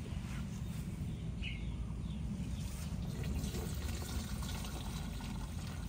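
Liquid pouring steadily from an aluminium pot through the mesh strainer into a knapsack sprayer's plastic tank, under a low rumble.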